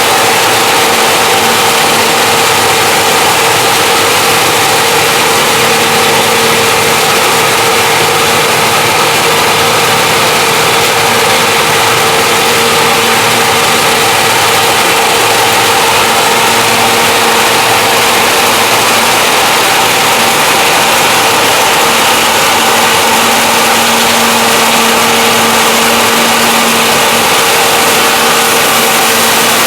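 John Deere 6620 combine running steadily while harvesting corn: a loud, even machine drone with a constant hum running through it.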